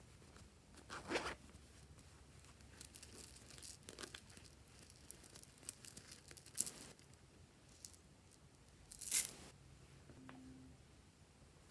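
Glossy slime being stretched and pulled by hand, giving a few short tearing, crackling sounds about a second, four, six and a half and nine seconds in.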